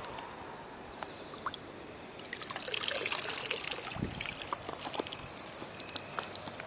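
Water trickling and splashing, getting louder about two seconds in, with scattered small clicks and a low knock.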